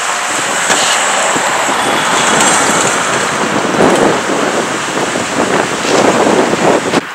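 Wind rushing and buffeting on the microphone, mixed with a car driving past; the noise drops off suddenly near the end.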